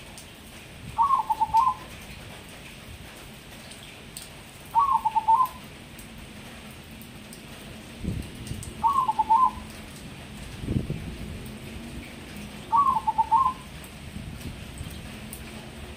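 Zebra dove (perkutut, a crossbred bird) cooing its song four times, about every four seconds, each phrase a quick stutter of a few notes. Two dull low thumps sound in the background between the later calls.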